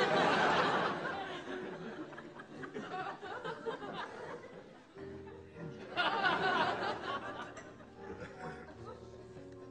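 Studio audience laughing: a burst right at the start that dies away over a couple of seconds, and a second burst about six seconds in, over soft background music.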